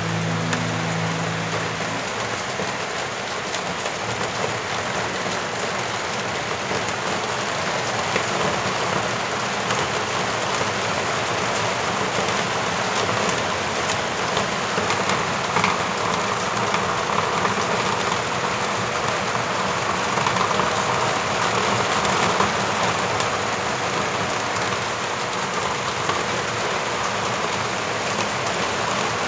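A steady, even hiss with a few faint ticks, like rain on a surface.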